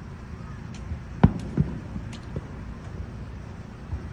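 Aerial firework shells bursting at a distance: a few sharp booms, the loudest about a second in, over a low steady rumble.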